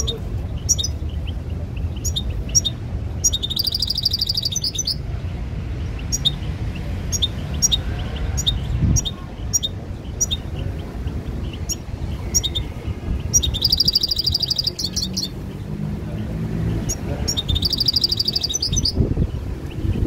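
A caged European goldfinch singing: scattered short high chirps broken by three fast trills of repeated notes, about three seconds in, around thirteen seconds and again shortly after.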